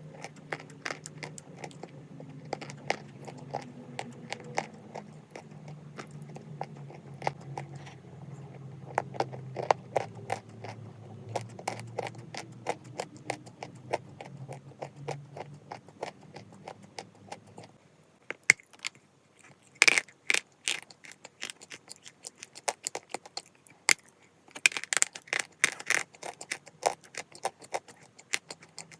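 Close-up crunching of chalk being bitten and chewed: dense sharp cracks and crackles, coming in thicker bursts in the second half. A low steady hum sits underneath and stops about two-thirds of the way through.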